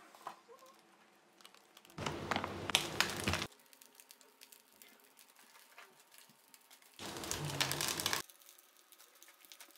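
Plastic spice-mix packets crinkling as they are handled and tipped over a pan, twice, each for a second or so: once about two seconds in and once about seven seconds in.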